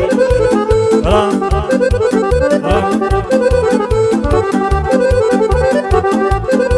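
Romanian party music in an instrumental break: an accordion plays a fast melody over a steady, quick drum beat and bass, with a rising slide about a second in.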